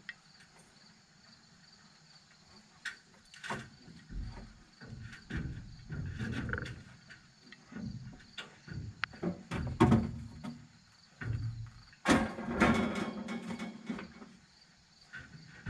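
Scattered metal knocks and clanks from an old Caterpillar forklift's cab door and frame as someone opens the door and climbs into the cab, with a louder clatter about twelve seconds in. Crickets chirp steadily in the background.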